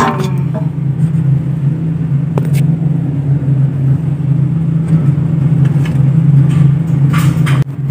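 Steady low mechanical hum of running machinery, with a few faint knocks and a short rustle of handling near the end.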